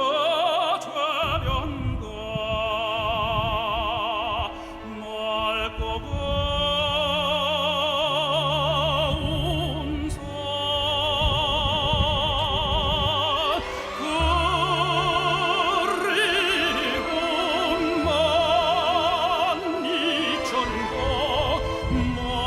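Classical tenor singing a Korean art song with wide vibrato over orchestral accompaniment.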